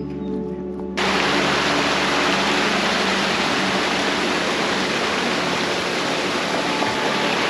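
Stream water running, a loud steady rush that cuts in suddenly about a second in. Before it there is a moment of bell-like music.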